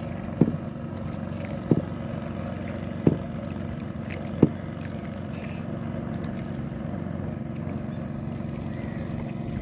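Steady hum of a boat's engine on the water, with four sharp knocks about a second and a half apart in the first half.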